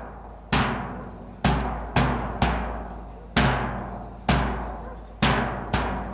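Slow, heavy drum beats, each strike ringing out with a deep boom before the next. The hits come roughly once a second, some in quick doubles.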